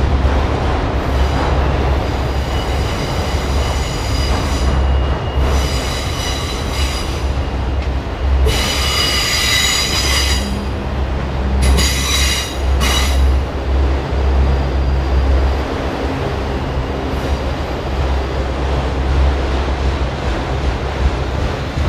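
Freight train of autorack cars rolling past: a steady, heavy rumble of steel wheels on rail, with high-pitched wheel squeal coming in several stretches, loudest about nine seconds in and again about twelve seconds in.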